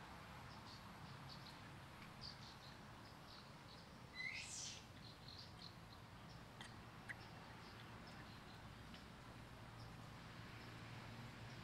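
Quiet outdoor ambience with faint, scattered bird chirps, and one louder high call about four seconds in that sweeps sharply upward.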